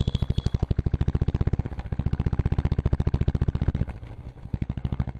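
Motorcycle engine running with a rapid, even pulsing beat, which grows quieter about four seconds in.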